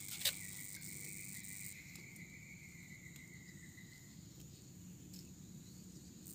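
Faint insects calling in a reed swamp: a steady high-pitched whine throughout, with a second, lower steady tone that slowly sinks and fades out about four seconds in. One sharp click sounds just after the start.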